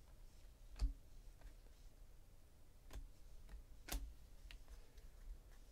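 A few faint, scattered clicks and taps of trading cards being handled and set down on a tabletop, the sharpest about four seconds in.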